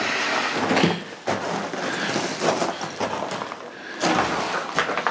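Footsteps crunching and scuffing over a debris-strewn concrete floor, with irregular knocks and thuds.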